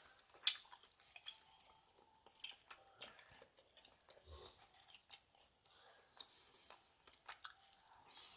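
Faint eating sounds: chewing of a dumpling from noodle soup, with scattered small clicks of a plastic spoon, the loudest a sharp click about half a second in.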